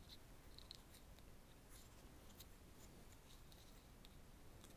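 Near silence with faint, scattered small ticks and rustles as two stranded copper wire ends are twisted together by hand.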